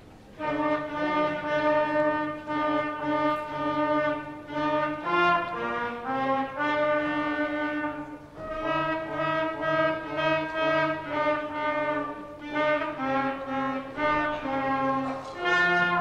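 A student wind ensemble of clarinet, trombone, sousaphone and other winds playing a tune in held chords over a pulsing bass line, starting about half a second in.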